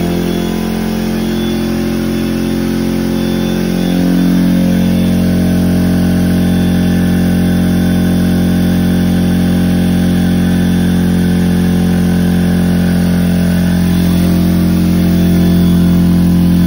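McGraw 21-gallon oil-free vertical air compressor running, its motor and pump building pressure in the tank on its first start. A steady hum with several even tones that gets a little louder about four seconds in.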